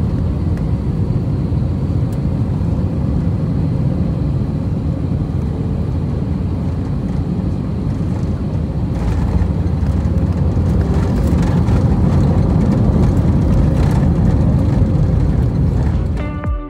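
Steady low rumble inside an Airbus A320 cabin during the descent into Milan, growing louder about halfway through.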